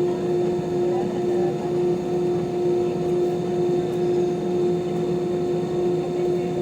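Steady airliner cabin noise aboard an Airbus A320-200: an even roar with a constant hum running through it.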